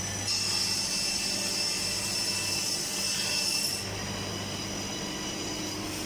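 Double end tenoner's cutters machining a wooden door workpiece: a high-pitched cutting whine sets in just after the start and stops about four seconds in, over the steady hum of the running machine.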